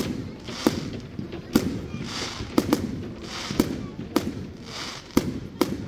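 Fireworks going off: a quick run of sharp bangs, about one or two a second, with a hissing rush between them.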